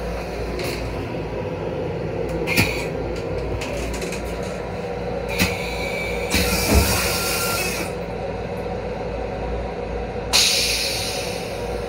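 Running noise of a Long Island Rail Road M7 electric railcar, a steady low rumble heard from inside its small restroom. Over it come a few clicks and short bursts of hiss, the longest about a second and a half a little past the middle.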